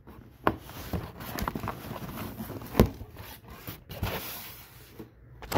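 Close-up handling noise from a diecast model car's cardboard box being handled: rustling and scraping with several sharp knocks, the loudest about three seconds in.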